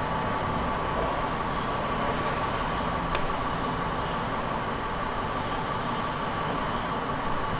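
Steady room noise with a continuous faint hum, and a couple of soft, faint chalk strokes on a blackboard.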